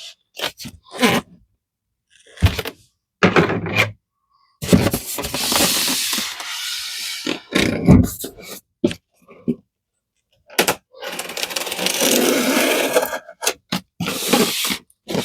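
A heavy cardboard shipping box being handled: a few short knocks, then long scraping sounds of cardboard rubbing and sliding.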